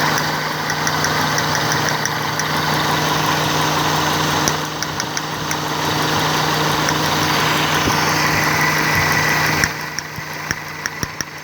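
Toyota Corolla's four-cylinder petrol engine idling steadily, its ignition coil now fitted with a new cap so it no longer sparks to the body. Near the end the sound drops quieter and a few sharp clicks are heard.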